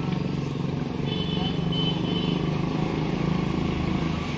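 A small engine running steadily with a low, even drone, typical of a motorcycle or motor rickshaw close by.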